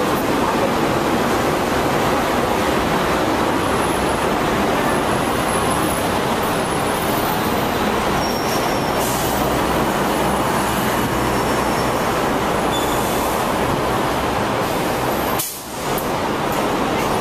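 Hong Kong double-decker electric tram running, heard from on board: a steady, loud rumble and rattle of the car on its rails, with faint, brief high squeaks now and then. The noise drops away for a moment near the end and then comes back.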